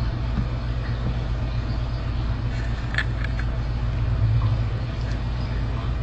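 Steady low mechanical hum, with a few soft clicks about three seconds in.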